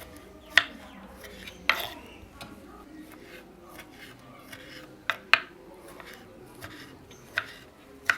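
Knife cutting tomatoes on a chopping board: about half a dozen sharp knocks, irregularly spaced, as the blade strikes the board.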